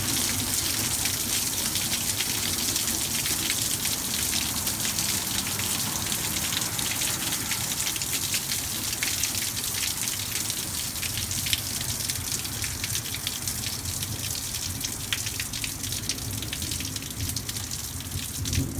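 Heavy rain pouring onto a concrete path, a steady dense hiss with many sharp little ticks of drops striking. A brief low bump near the end.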